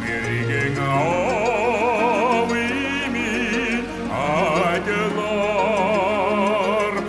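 Male voice singing a Mongolian song with a wide vibrato over sustained instrumental backing.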